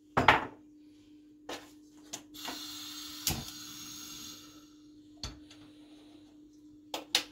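Kitchenware knocking and clinking: several sharp knocks, the loudest right at the start, with a soft hiss for about two seconds in the middle. A low steady hum runs underneath.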